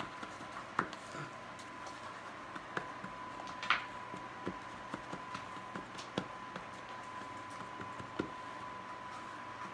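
Floured hands pressing and patting soft soda bread dough into a square metal baking pan: scattered soft taps and light knocks against the pan, with a brief rustle about four seconds in. A faint steady high tone runs underneath.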